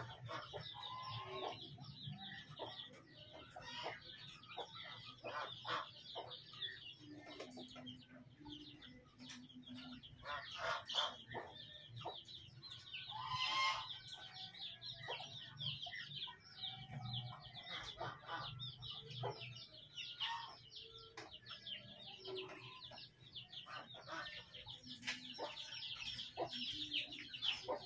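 Domestic hens clucking with their chicks peeping around them, a busy run of short calls, with scattered sharp knocks.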